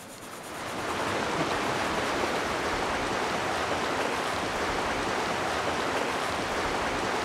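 Steady rushing water that fades in over about the first second, then holds as an even wash.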